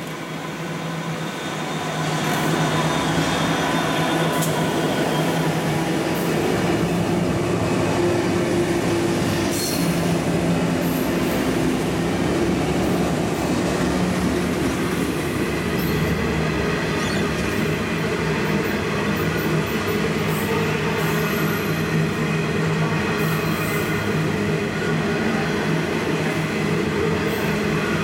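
Four 82 class diesel-electric locomotives passing close by at the head of a coal train, their engine sound growing over the first two seconds. Then a long string of coal hopper wagons rolls steadily past, wheels running on the rails.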